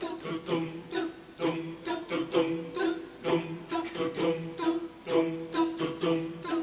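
Pub choir singing a rhythmic, a cappella-style passage: short, punchy notes repeated two to three times a second, mostly on one pitch.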